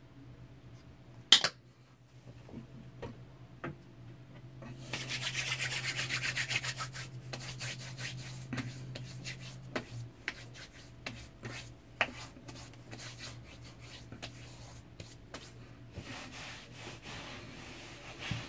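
Rubbing and wiping on the face after a wet shave, loudest for about two seconds around five seconds in, then softer strokes with scattered light clicks. A single sharp knock comes about a second and a half in.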